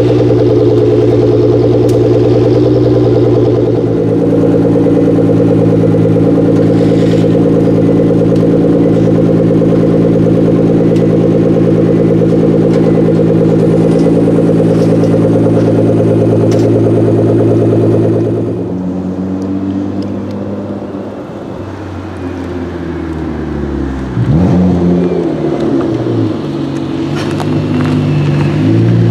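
Nissan GT-R R35's twin-turbo V6 idling steadily, the idle stepping up slightly about four seconds in. From about eighteen seconds in, a GT-R engine is revved up and down in repeated blips.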